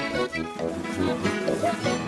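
Background music made of many short pitched notes that change quickly.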